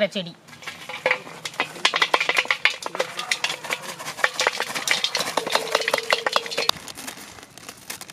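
Busy clicking and rattling of food being prepared by hand: packets and a metal plate being handled, with stirring or scraping sounds. A brief steady hum about two-thirds of the way through.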